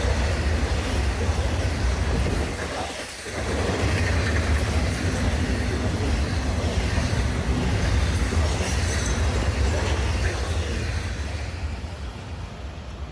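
Florida East Coast Railway train rolling past on the track: a steady, loud low rumble of wheels and cars, dipping briefly about three seconds in and fading near the end as the train goes by.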